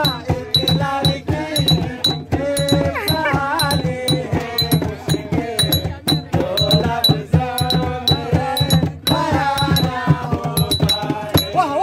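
Group singing with improvised percussion: a glass bottle struck with a knife gives a steady ringing clink about three times a second, over drumming on plastic jerrycans and a plastic barrel.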